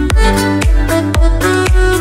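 Background music with a steady beat, about two beats a second, over a deep bass line.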